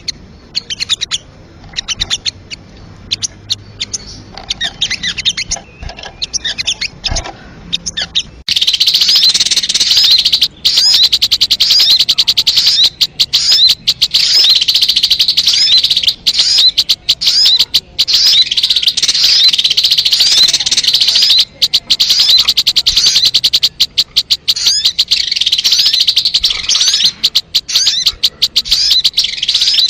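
Recorded sogon bird calls played as a bird lure. At first there are scattered chirps; about eight seconds in, a louder, dense run of rapid chirping takes over and keeps going.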